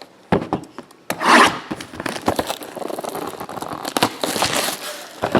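Trading-card packaging and cards being handled: cardboard and plastic rubbing, scraping and crinkling, with a click near the start and a louder rustle about a second in.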